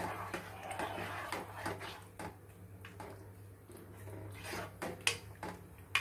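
Spatula stirring a thin tomato curry in a non-stick pot: soft sloshing and scraping, with a few light knocks of the spatula against the pot, over a steady low hum.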